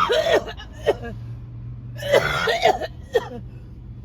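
A woman's coughing fit: a burst of coughs at the start and another about two seconds in, with single coughs between them. It is a mucus-laden cough from her lung condition.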